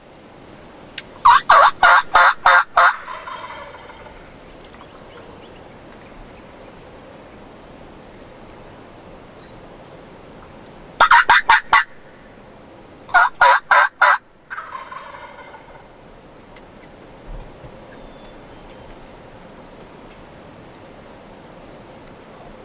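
Wild turkey tom gobbling three times: once about a second in, then twice close together around the middle. Each gobble is a fast run of notes that echoes briefly. He is gobbling in answer to the hunter's calls.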